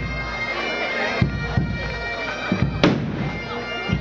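Bagpipes playing, their drones holding steady under the chanter tune, with crowd voices beneath. Several sharp bangs cut through, the loudest about three seconds in.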